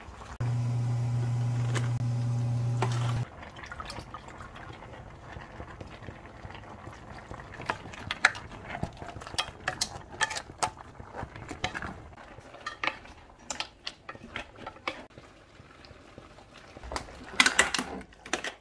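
A loud steady electric hum for about three seconds near the start. Then a utensil scrapes and clacks in a deep pan of simmering braised monkfish and bean sprouts as it is stirred, over a soft bubbling. Louder scraping and clatter near the end come as the pan is emptied into a stainless steel tray.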